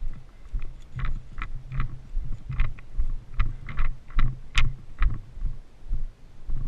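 Regular low thuds, about three a second, each with a sharp click on top; one click a little after halfway through is much sharper than the rest.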